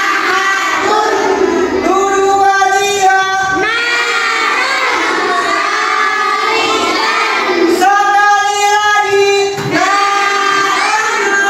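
A class of schoolchildren singing together in unison, holding long notes that slide from one pitch to the next.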